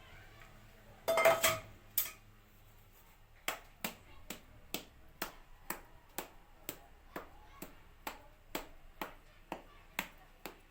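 A metal utensil clatters once against the cake pan, then taps against it in a steady rhythm, sharp clicks about two a second, as syrup is worked into a hot basbousa in its baking pan.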